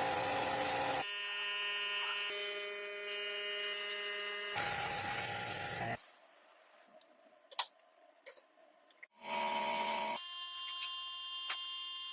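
Power tools heard in short edited snippets: bursts of harsh grinding or sanding noise alternating with the steady whine of a running electric tool motor. Near the middle the tools stop for a few seconds and only a few light clicks are heard.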